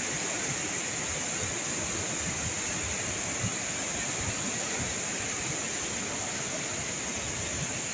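Madhabkunda waterfall in monsoon spate, a heavy torrent of muddy floodwater pouring down with a steady roar of falling water and spray.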